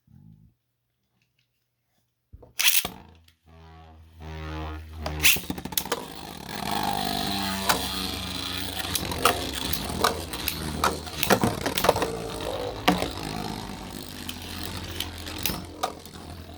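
3D-printed Beyblade tops launched into a plastic stadium and battling. There is a sharp launch sound about two and a half seconds in, then a brief whir, then a dense, irregular rattle of clicks and hits as the spinning tops collide.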